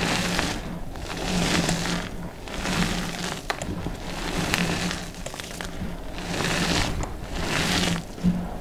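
Hands squeezing and crumbling handfuls of crushed, red-dyed reformed gym chalk, a soft crunchy crush that swells and fades about once a second, with a few sharp crackles.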